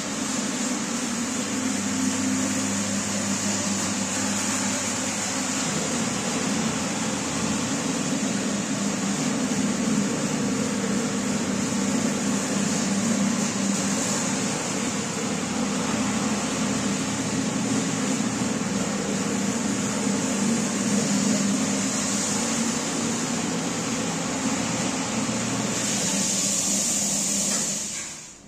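Rug-cleaning machine running steadily, a motor hum under a high hiss; a lower part of the hum drops out about six seconds in, and the machine winds down near the end.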